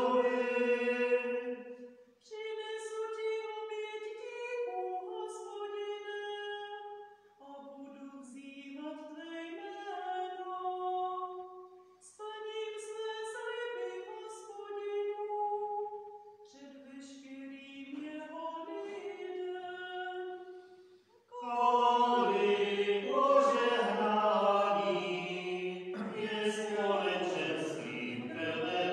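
Responsorial psalm sung in Czech: a cantor sings the verse in short chanted phrases with brief pauses between them, then from about 21 seconds in a louder, fuller sung refrain.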